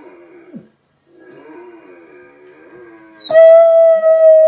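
Faint, wavering vocal sounds, then about three seconds in a Bernese Mountain Dog lets out a loud, long howl held at a steady pitch, answering a husky it has been watching.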